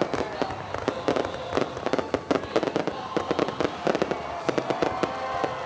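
Fireworks display going off in a dense, irregular run of sharp bangs and crackles, several reports a second.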